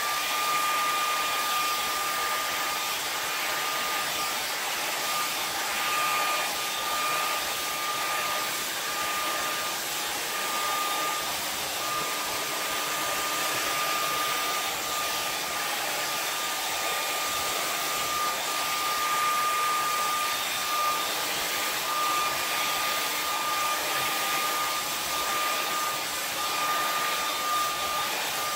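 Handheld Conair hair dryer running on its high setting: a steady rush of air with a constant high motor whine.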